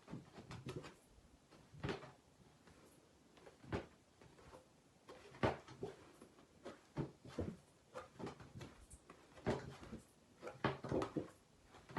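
Soft knocks and rustles of a stiff card being handled and turned over by hand, the loudest coming every second or two.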